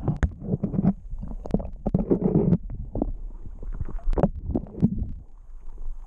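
River water sloshing and gurgling around a camera dipped at and below the surface, heard muffled and rumbling, with irregular knocks and splashes.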